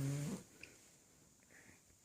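Yorkshire terrier snoring loudly: one drawn-out, steady-pitched snore that cuts off less than half a second in, followed by faint small sounds.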